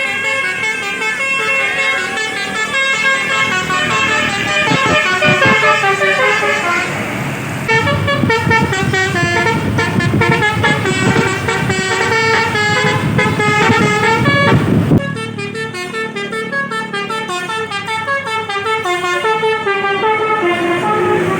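Tour-bus 'telolet basuri' musical horns playing quick tunes of stepping notes over bus engine noise. The tune changes abruptly twice, about 8 and 15 seconds in, as a different bus horn takes over.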